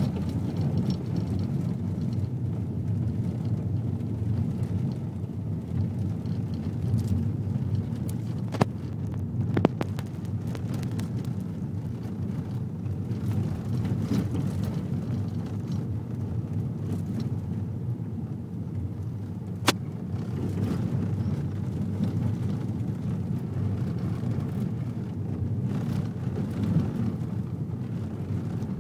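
Vehicle driving on a dirt road, heard from inside the cabin: a steady low rumble of engine and tyres on the dirt. Two sharp knocks come about a third of the way in and one more about two-thirds through.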